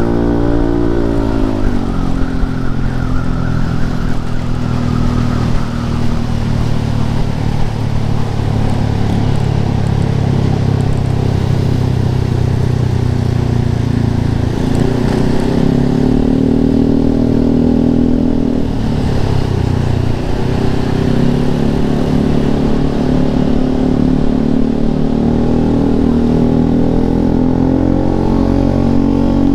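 Yamaha Lexi scooter engine running through an Arrow aftermarket exhaust. Its pitch drops in the first couple of seconds, holds fairly steady, then rises and falls again with the throttle around the middle.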